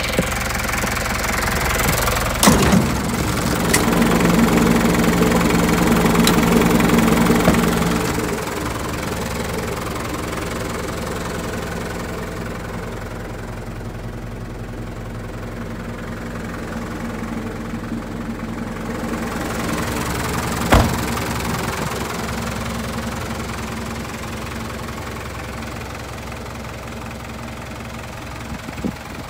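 Mitsubishi Canter truck engine idling steadily, louder for a few seconds near the start, with a few sharp clicks and knocks, the sharpest about twenty seconds in.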